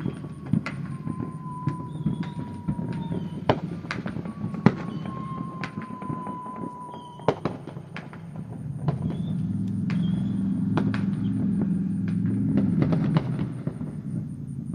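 Neighbourhood fireworks going off in many scattered sharp bangs and pops, with a low rumble that swells about two-thirds of the way through. A faint steady tone that slowly falls in pitch recurs every few seconds in the background.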